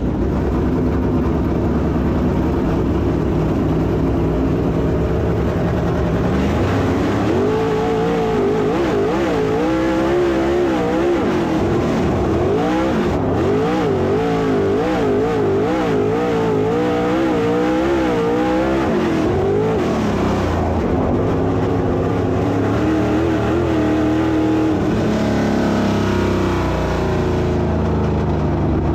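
Dirt late model race car engine running hard on the track, its pitch swinging up and down as the throttle is worked through the turns, steadier and lower later on and dropping near the end.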